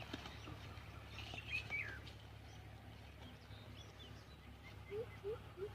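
Faint birds chirping, with a steady low hum underneath. From about five seconds in comes a run of short, low, rising calls, about three a second, each a little lower in pitch.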